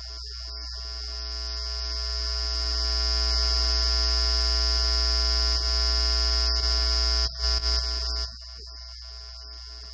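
Steady electronic buzz: a high whine over a low hum, swelling louder over the first three seconds, breaking up briefly about seven seconds in, then dropping back quieter.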